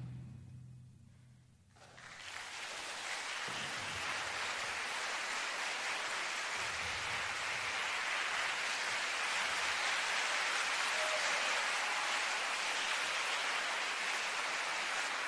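The final chord of a school brass and concert band dies away into a brief hush, then audience applause breaks out about two seconds in and carries on steadily.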